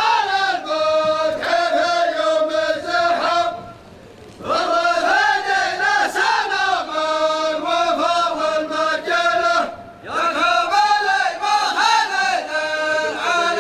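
Rows of men chanting a tribal poem together in unison, in long sung phrases, with short breaks about three and a half seconds in and about ten seconds in.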